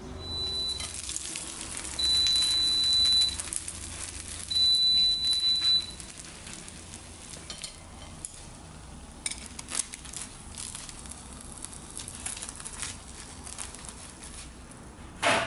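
Freshly deep-fried breaded chicken cutlet crackling and sizzling as its crust settles, with chopsticks pressing into it near the end. Three long, steady high beeps sound in the first six seconds, each over a second long and louder than the crackling, and there is a short louder noise at the very end.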